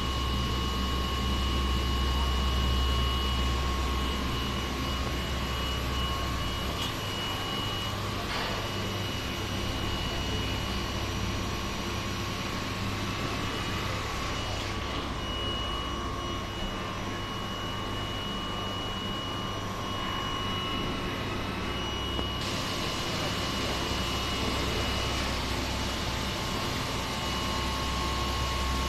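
Steady machinery drone of a running package membrane bioreactor sewage treatment plant, with pumps and aeration blowers, carrying a thin steady high whine over a low hum. The low hum eases for a stretch in the middle, then comes back.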